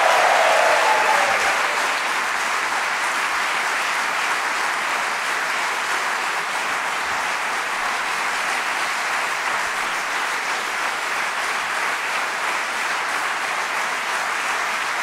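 A large audience applauding, a steady clatter of many hands clapping that is a little louder for the first couple of seconds and then holds even.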